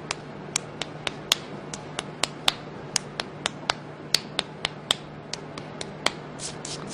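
Fingertips tapping and slapping along a child's inner forearm in the paediatric tuina stroke 'beating the horse across the heavenly river', used against high fever. Sharp, light taps come about three to four a second; near the end they turn softer and quicker.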